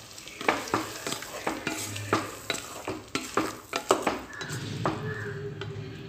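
Wooden slotted spatula stirring a thick ground-paste and pumpkin mixture in a metal pot, knocking and scraping against the pot's sides and bottom in quick irregular strokes, about three a second. The thick paste is being kept from sticking to the bottom.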